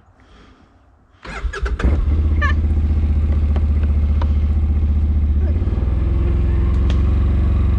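A vehicle engine cranks briefly and catches a little over a second in, then runs at a steady idle that settles slightly lower about two-thirds of the way through.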